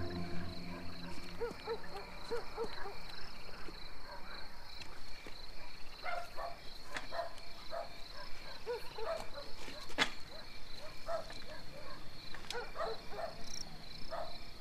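Night ambience of crickets chirping steadily, with scattered short calls and rustles underneath and one sharp click about ten seconds in.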